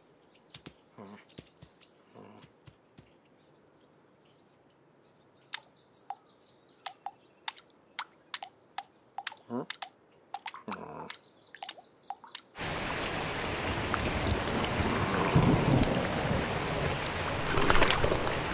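Quiet birdsong with scattered light clicks, then about twelve and a half seconds in a heavy downpour of rain starts suddenly and pours on steadily.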